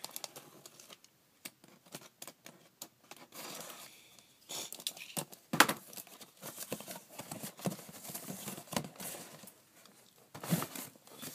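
A box cutter slits the packing tape on a cardboard shipping box, followed by scraping, tapping and rustling as the cardboard box is handled. The loudest knock comes about halfway through.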